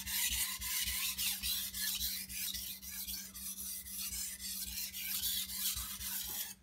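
Kitchen knife blade stroked rapidly back and forth on a water stone: a continuous gritty rasping made of quick repeated strokes, as the edge is ground to raise a burr.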